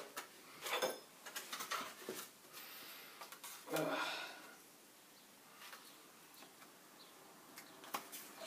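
Quiet handling sounds in a kitchen: a few light clicks and the rustle of paper wrapping being opened around a block of lean cheese, with a short breathy sound about four seconds in.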